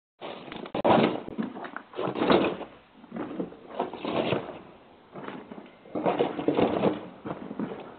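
Irregular knocking and clattering in clusters about a second or two apart, heard through a doorbell camera's microphone, which gives it a thin, telephone-like sound.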